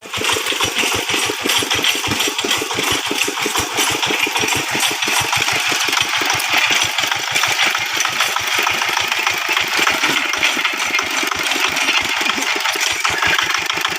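Single-cylinder diesel engine of a walk-behind hand tractor (rice-field plough) running steadily, with an even, rapid chugging beat.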